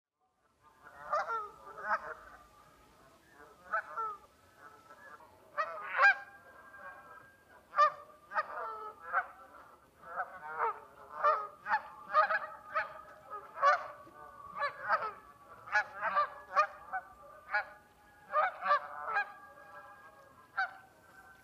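A flock of Canada geese honking, many short calls following close on one another and often overlapping, starting about a second in.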